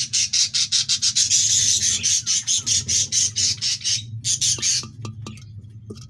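Budgerigar squawking harshly in quick, even pulses, then stopping suddenly near the end; a few faint clicks follow.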